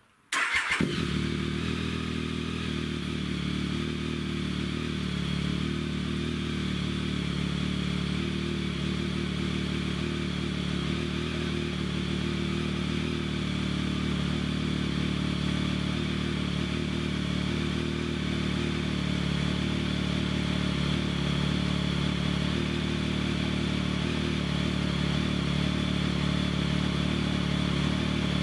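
Triumph Tiger 1050's three-cylinder engine, breathing through a newly fitted Arrow aftermarket silencer, cranks briefly, catches about half a second in and settles into a steady idle.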